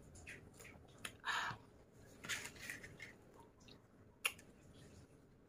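Faint eating and drinking sounds: sipping from a glass, then a pizza slice being pulled apart, with small clicks and a sharp click a little past four seconds.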